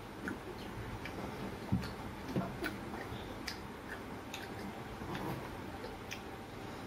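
Scattered light clicks and taps, irregularly spaced, from small chocolates and foil wrappers being handled on a tabletop, with one slightly heavier knock a little under two seconds in.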